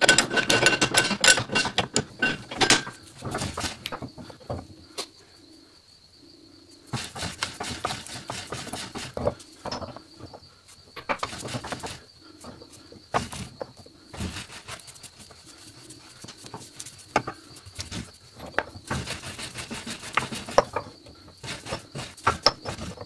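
Ratchet wrench clicking in quick runs as it turns the screw of a shop press, pressing a rubber bushing into a strut rod. The clicks are densest in the first few seconds, then come in separate bursts. A faint steady high tone joins about four seconds in.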